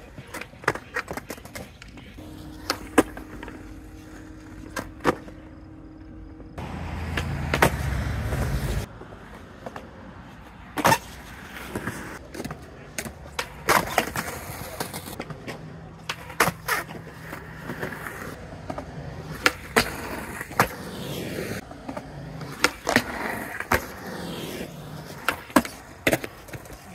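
Skateboard wheels rolling on smooth concrete, broken by many sharp clacks of the board popping, landing and its trucks striking a ledge. A louder rumble runs for a couple of seconds about seven seconds in.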